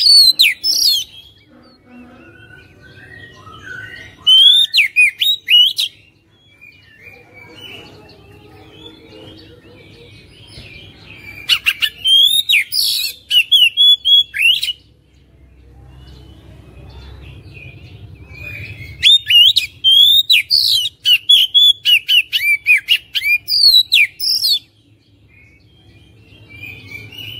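Oriental magpie-robin singing in loud bursts of rapid, varied whistles and sharp notes. There are four phrases with pauses of a few seconds between them, and the last is the longest, about five seconds.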